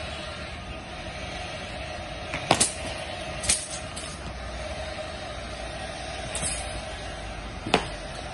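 Three sharp snaps from a taiji swordsman's movements, one doubled, about two and a half seconds in, a second about a second later and a third near the end, over a steady background rumble.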